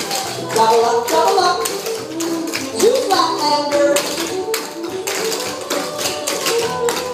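Clogging shoe taps striking a wooden dance board in quick rhythmic patterns over recorded music.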